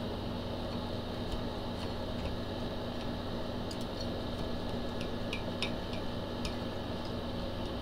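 A knife and fork cutting into a crispy air-fried chicken breast on a plate, heard as a handful of light clicks in the second half over a steady background hum.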